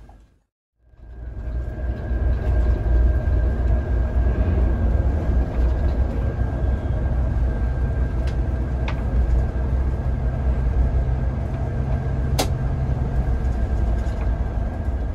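Steady low drone of a Scania K410 coach's rear-mounted diesel engine and road rumble, heard inside the cabin while the bus cruises on the open road, with a thin steady whine over it. The sound fades in after about a second, and there is one sharp click near the end.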